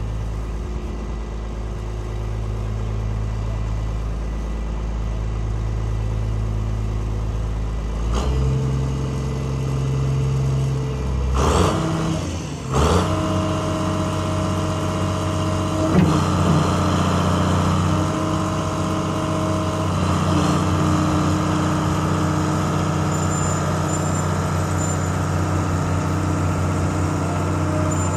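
John Deere 690B excavator's 404 diesel engine running. Its note shifts about eight seconds in, a few sharp knocks come near twelve seconds, and then it runs on at a busier pitch as the excavator swings round.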